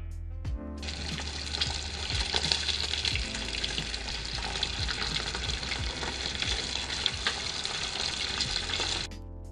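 Fish deep-frying in hot oil: a dense, steady sizzle that starts about a second in and cuts off shortly before the end, over background music.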